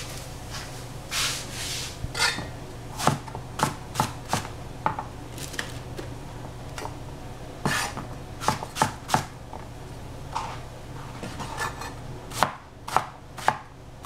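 Knife chopping vegetables on a cutting board: sharp knocks at irregular spacing, coming in clusters of two to four, with a brief scraping sound about a second in.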